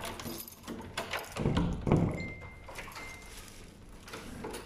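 A wooden door being unlocked and opened: keys and the lock rattling and clicking, with a few louder thuds of the door about a second and a half in. Two short high-pitched tones sound near the middle.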